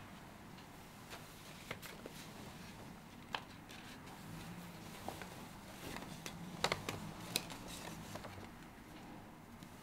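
Quiet handling sounds: bedsheets and a small paper envelope rustling, with scattered light clicks that are busiest in the middle and loudest a little after halfway.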